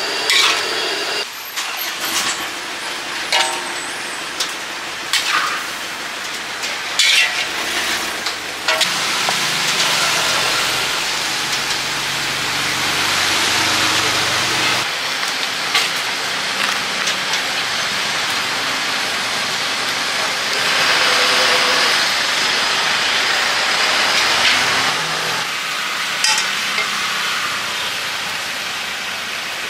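A metal spatula scraping and knocking against a large metal wok as food is stir-fried, with a steady sizzling hiss and street traffic behind it. The knocks come mostly in the first several seconds, then the hiss and traffic run on.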